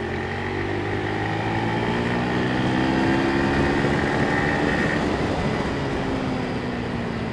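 A vehicle engine droning over steady road noise, its pitch rising slightly toward the middle and easing back down.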